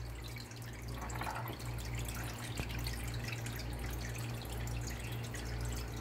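Sweetened condensed milk pouring in a thick stream from a can into a plastic blender jar, with soft liquid dripping sounds, over a low steady hum that dips about once a second.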